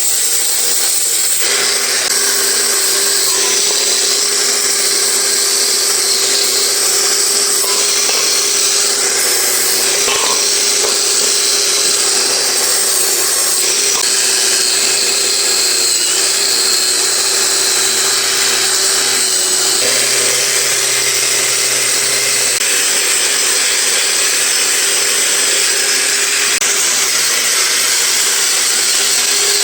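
A handheld power tool running continuously, a steady whine with a bright hiss that dips slightly in pitch now and then as it bears on the work.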